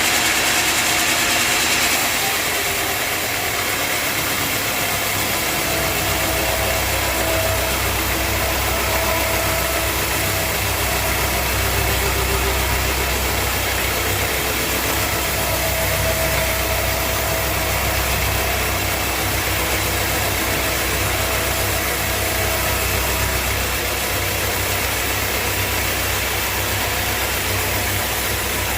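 Sawmill machinery running steadily, a continuous engine-like drone with a low hum that comes in about five seconds in.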